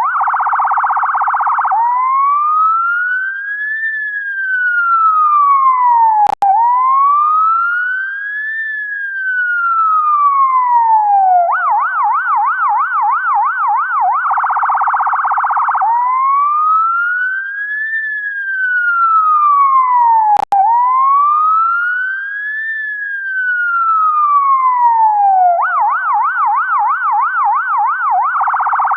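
UK ambulance siren cycling through its tones: two slow wails, each rising and falling over about four to five seconds, then a fast yelp and a short, quicker burst, the pattern repeating about every fourteen seconds. The sound cuts out for an instant twice, at the bottom of a wail.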